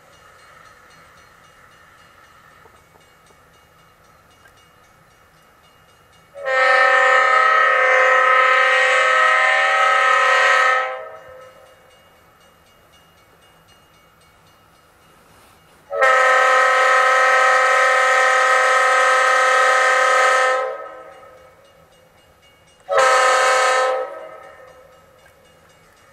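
Leslie multi-chime locomotive air horn sounding a steady chord in two long blasts of about four and a half seconds each, then one short blast of about a second.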